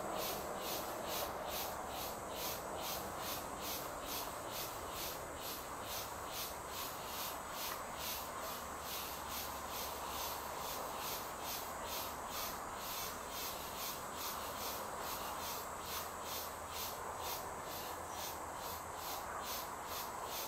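Insects chirping in a steady, even rhythm of about three high-pitched pulses a second, over a steady background rush.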